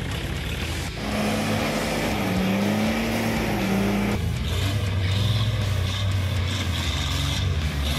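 Off-road 4x4 engines working hard in deep mud. First a recovery vehicle's engine rises and falls in pitch as it pulls a stuck SUV out on a tow strap. Then, about four seconds in, a lower engine note comes in abruptly as a jeep claws through the ruts.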